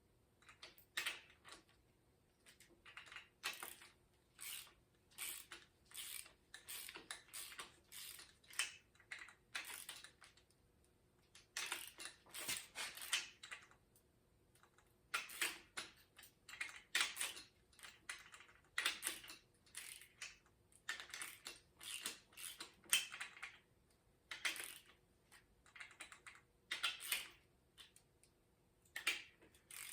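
Hand ratchet clicking in repeated short strokes during a pushrod engine valve adjustment, in bursts a fraction of a second to about a second long with brief pauses between.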